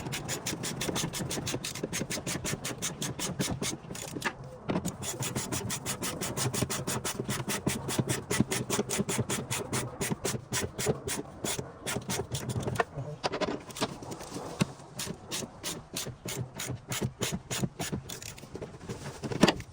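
Ratchet wrench clicking rapidly and evenly as it runs a mounting bolt back in on a coolant recovery tank, in several spells with brief pauses between them.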